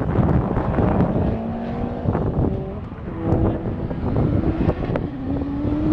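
Turbocharged motorcycle-engined carbon car accelerating through the gears, each gear a slowly rising engine note that breaks off at the shift. Wind buffets the microphone throughout.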